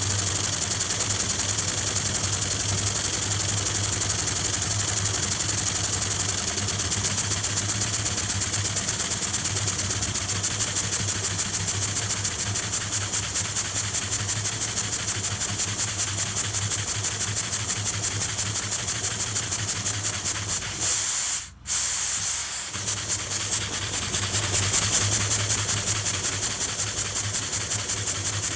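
Small 3D-printed compressed-air engine running, its exhaust giving a fast, even beat of hissing puffs. The sound cuts out for an instant about three-quarters of the way through, then carries on.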